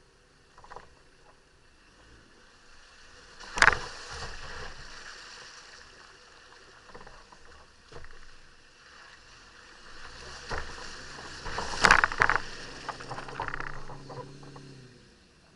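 Off-road 4x4 wading through a muddy, water-filled rut: water sloshing and splashing around the wheels, with two loud splashes or knocks about four seconds in and again around twelve seconds. The engine is heard working near the end as the vehicle climbs out onto firmer ground.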